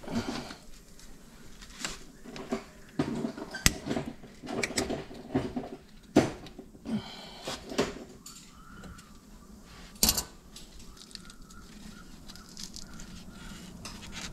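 Scattered metal clicks, clinks and knocks of pliers working a hose clamp on a minivan's coolant pipe, with a few sharper knocks spread through.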